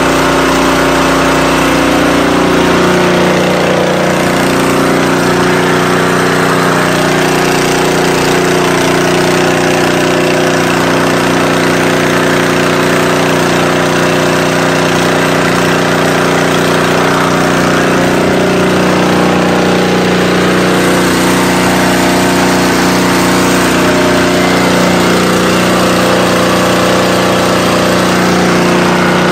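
Small petrol engine driving the high-pressure pump of a portable water-mist fire-fighting unit, running steadily under load, with the hiss of the water jet spraying from the gun nozzle.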